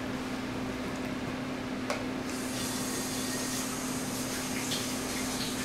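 Steady background hum with a constant low tone, under faint eating noises while someone eats: a sharp click about two seconds in and a few soft clicks later. A brighter hiss comes in just after two seconds.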